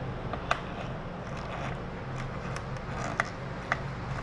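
Small clicks and light scraping of a screwdriver and plastic parts being handled, with three sharper clicks: about half a second in and twice near the end.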